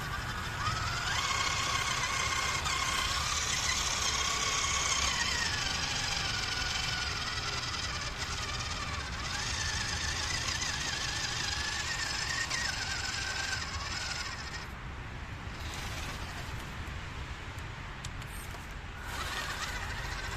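Electric motor and geartrain of a 1/16 WPL RC truck whining as it drives, the pitch rising and falling with the throttle over a rattling clatter. The whine eases off for a few seconds past the middle and picks up again near the end.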